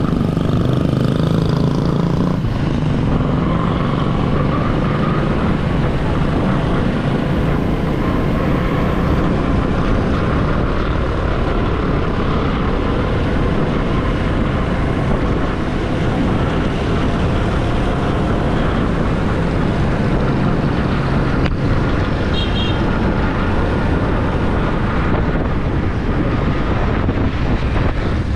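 Steady rush of wind over the microphone and a motorcycle engine running while riding along a city road, with other traffic around.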